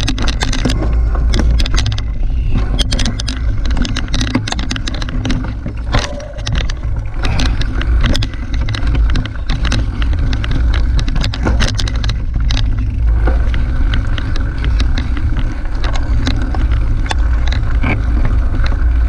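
Mountain bike ridden fast along a dirt forest singletrack, heard from a camera mounted on the bike. Tyre and wind rumble on the microphone carries on throughout, with frequent sharp clicks and rattles from the bike jolting over the rough trail.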